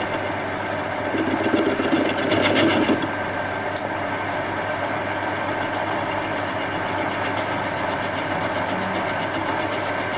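CQ9325 benchtop metal lathe running with a steady hum while a round-nose high-speed-steel tool turns a rough cast-aluminium bar on medium feed. A fast, regular ticking runs through it, and the sound is louder and rougher for a couple of seconds about a second in.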